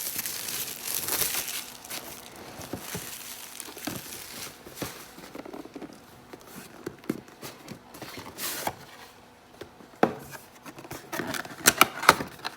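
Packaging of a Panini Prizm basketball Mega Box crinkling and tearing as it is unwrapped and opened by hand, with scattered sharp clicks and taps of cardboard, a quick run of them near the end.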